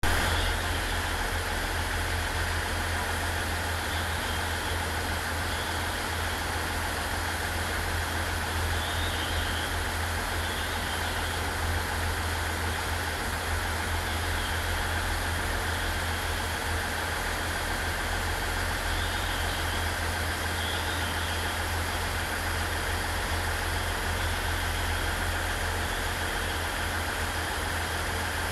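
Diesel railcar engines idling steadily with a low hum while the train stands at the platform waiting to depart.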